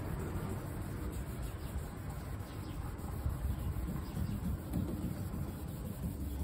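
Hand wet-sanding of a truck's clear coat with 1000-grit paper on a foam block: a soft, damp scrubbing of back-and-forth strokes over a steady low rumble.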